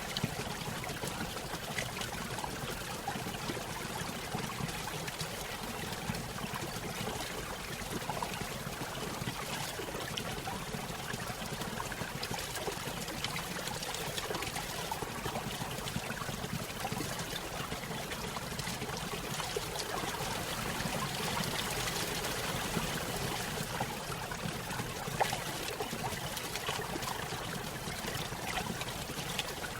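Small stream splashing over a little waterfall, a steady trickling and pouring of water.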